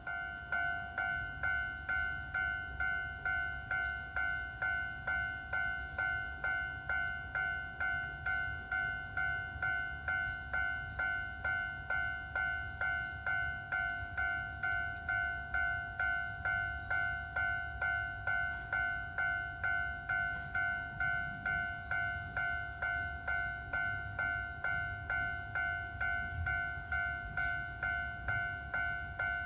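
Japanese railroad crossing warning bell starting up and ringing steadily, a two-tone electronic 'kan-kan' struck just under twice a second, each stroke dying away: the signal that a train is approaching.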